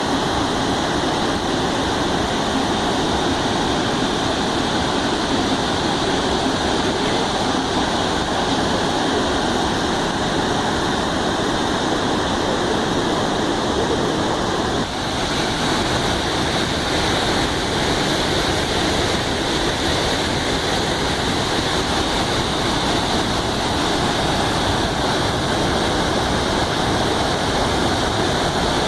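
Waterfall: a steady, loud rush of falling water, its tone shifting slightly about halfway through.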